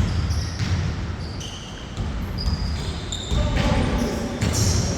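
Sneakers squeaking on a basketball court in short high chirps, with a basketball bouncing and players' footfalls thudding underneath.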